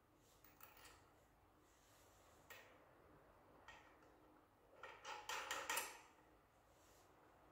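Scattered small clicks and clinks of objects being handled, with a brief, busier clatter about five to six seconds in.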